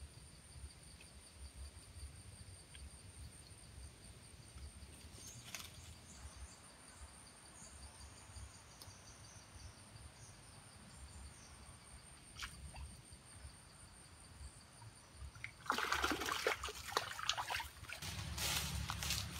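Insects trilling steadily at two high pitches over a faint outdoor background, with a couple of soft clicks. About three-quarters of the way through, a loud stretch of crackling noise starts and carries on.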